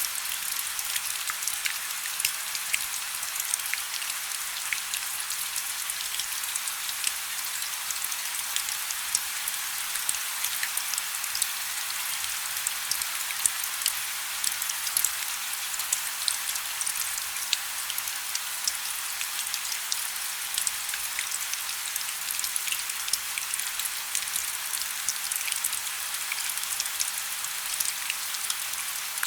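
Wood fire burning in a fireplace: a steady hiss with frequent small, sharp crackles and pops from the burning logs.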